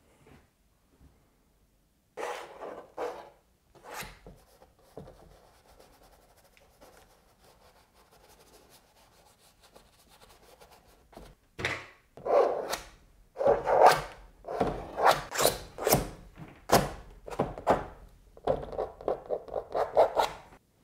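Paint being scraped and rubbed onto a stretched canvas with a hand tool, the taut canvas thudding under the pressure. There are a few strokes at first, then it goes quiet for several seconds before a quick run of louder scraping strokes fills the second half.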